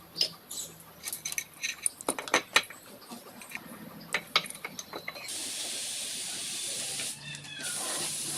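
Irregular metallic clicks and taps of tools on engine parts, then a spray hissing in two long bursts a little after the halfway point, with a short break between them.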